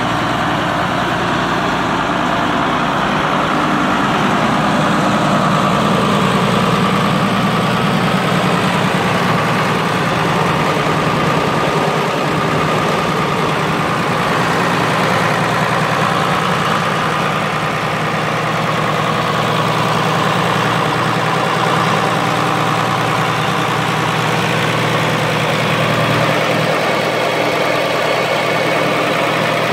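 1970 International Harvester 1456's turbocharged six-cylinder diesel engine idling steadily.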